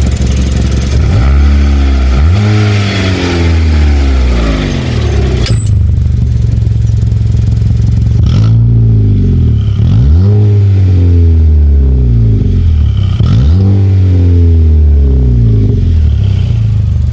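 Hyundai i30 engine revved at a standstill through an exhaust fitted with a cutout-style diffuser: about four quick blips of the throttle, with the engine settling back to idle after each. There is a sharp click about five and a half seconds in.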